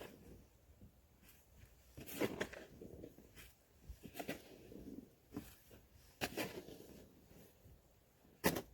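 Snow shovel scraping and scooping heavy, thick snow in a few separate strokes about two seconds apart.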